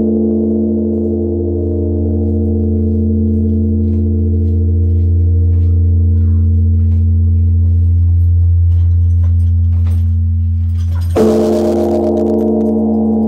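Large Korean bronze temple bell (beomjong) ringing on, with a deep, lingering hum under several steady higher tones. About eleven seconds in it is struck again with its wooden log striker: a sharp clang, and the ringing comes back full.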